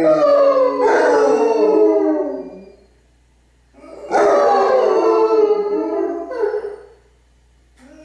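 Basset hounds and a bloodhound howling together, several long wavering voices overlapping. Two long bouts of howling with a short pause about three seconds in.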